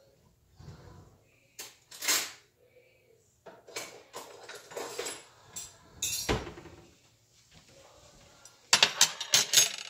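Kitchen clatter: scattered knocks and clinks of dishes and utensils being handled. The loudest knocks come about two seconds and six seconds in, and a quick run of sharp clicks comes near the end.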